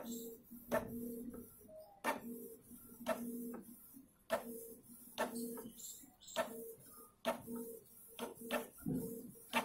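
Canon ink tank inkjet printer printing a page: the print head carriage motor hums steadily in passes, broken by sharp clicks about once a second.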